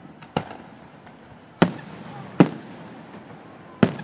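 Fireworks display: four sharp bangs of aerial shells bursting at uneven intervals, each trailing off in a short echo.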